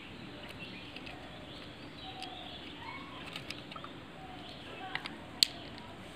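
Birds chirping faintly in the background, with a few light clicks and one sharp click near the end from the plastic top cover and a screwdriver being handled as a car tyre inflator compressor is taken apart.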